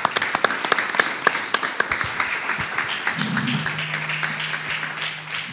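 Audience applauding: dense, irregular hand clapping that slowly fades. A low steady hum comes in about three seconds in.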